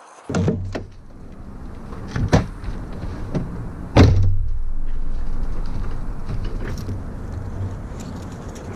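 Nissan 240SX's engine running with a low rumble, with sharp knocks of doors or handling at the car about half a second, two and a half and four seconds in; the one at four seconds, a door slam, is the loudest.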